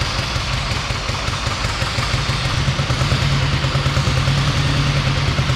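Porsche 550 Spyder's 1.5-litre air-cooled four-cylinder boxer engine with shaft-driven camshafts and Weber carburettors, running steadily just after being started, growing a little louder about halfway through.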